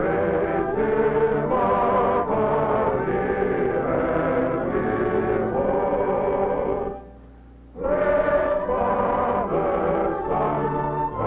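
A choir singing slow, sustained chords, breaking off briefly about seven seconds in before the next phrase starts.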